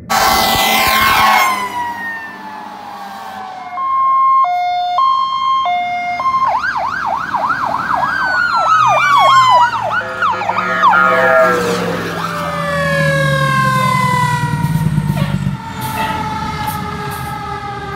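Fire apparatus sirens on emergency response: a mechanical siren winding down in long falling wails, a two-tone hi-lo alternation a few seconds in, then a fast electronic yelp, with a low steady tone underneath in the middle.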